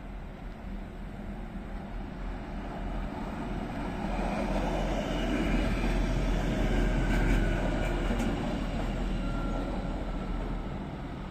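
DB class 646 Stadler GTW 2/6 diesel multiple unit arriving and running past, its engine and wheels on the rails growing louder from about four seconds in and easing off near the end. A few faint high squeals sound as it passes.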